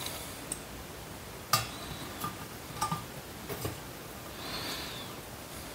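Pliers working the mounting nut on a clock mechanism's centre shaft against a steel saw-blade clock face: a few sharp metal clicks and clinks, the loudest about a second and a half in.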